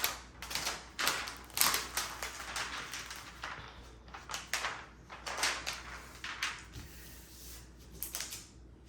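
Thick, sticky plastic cover film being peeled back from a diamond-painting canvas, crinkling and rustling in a run of irregular swishes.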